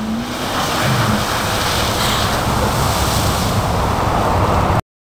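Steady rushing outdoor noise, like wind on the microphone mixed with traffic, that cuts off abruptly to silence near the end.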